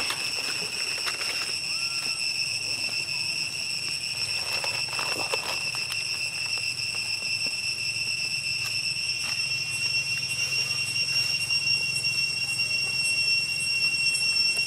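Insects droning in a steady, high-pitched, unbroken whine with overtones, growing louder after about ten seconds. A few faint rustles come around five seconds in.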